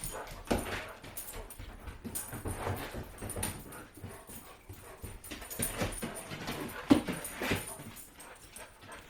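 Dogs at play, making scattered short taps and scuffles, with one sharp knock about seven seconds in.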